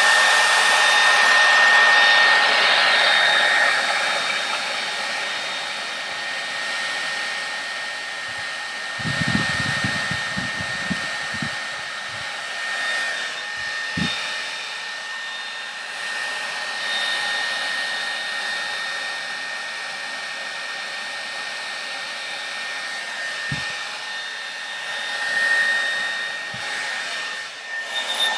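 A Conair Infiniti D214SR blow dryer running steadily: a rush of air with a steady high whine from its motor. A few low thumps come about nine to twelve seconds in.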